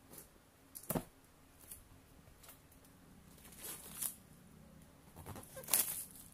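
Packaging being handled during an unboxing: scattered light clicks and rustles, with a sharp click about a second in and a busier patch of rustling near the end.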